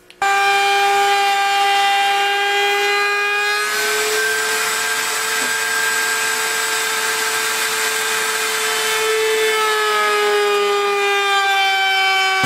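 Table-mounted wood router running with a steady high whine while it rounds over the edge of an eastern red cedar board. For a few seconds in the middle the whine turns rougher and noisier as the board is fed past the bit.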